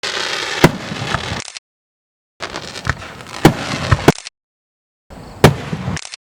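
Fireworks going off: several sharp bangs of bursting shells over a steady crackling hiss. The sound cuts out abruptly to total silence several times.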